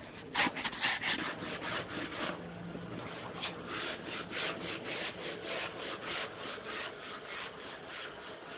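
Rhythmic scraping strokes, about three a second, that fade toward the end.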